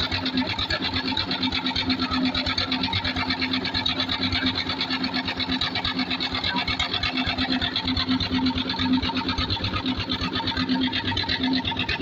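Concrete mixer machine running steadily: a fast, even mechanical clatter over a constant hum.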